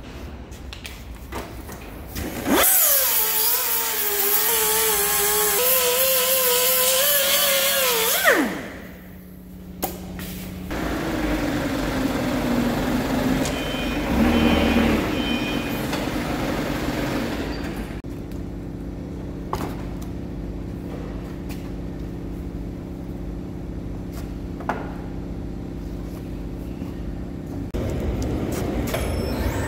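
Angle grinder spinning up with a rising whine, running for about six seconds with its pitch wavering, then winding down. After it comes a quieter, steady machinery hum.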